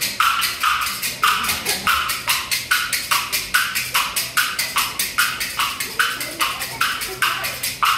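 Bamboo clappers (kuaiban) clacking in a steady, quick rhythm, about three strokes a second.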